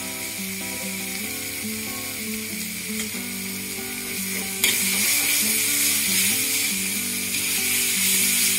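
Ground spice paste with keluak, lemongrass and galangal sizzling in a wok while a metal spatula stirs and scrapes it, the paste being sautéed until fragrant. The sizzle grows suddenly louder about halfway through.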